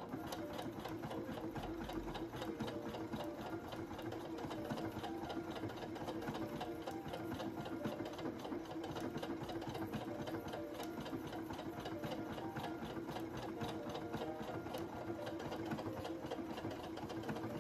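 Husqvarna Viking Jade 20 electronic sewing machine stitching a decorative stitch through denim at a steady speed: a steady motor hum under rapid, even needle strokes.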